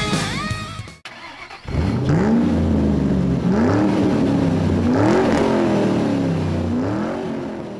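Car engine idling low and revving up and back down about four times, after the tail of a rock guitar track fades out in the first second.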